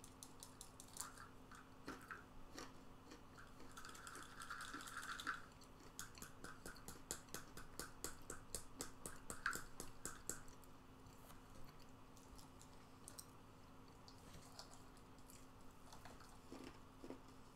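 Faint, crunchy chewing of a spicy trail mix of nuts, pretzels and cheddar crackers, with many quick crunches that come thickest from about six to eleven seconds in.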